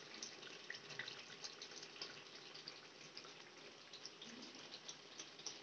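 Mutton curry simmering in a pan: faint, irregular bubbling and popping of the thick gravy and oil.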